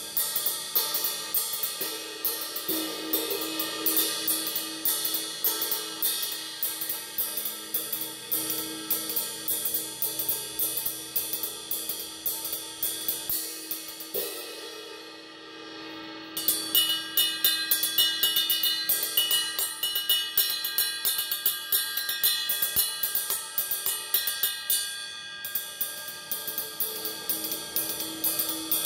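20-inch vintage Sabian AA Sound Control ride cymbal played with a wooden drumstick in a steady ride pattern, each stroke ringing into a continuous wash. About halfway through the strokes stop for about two seconds and the cymbal rings down, then the playing resumes with a brighter ring.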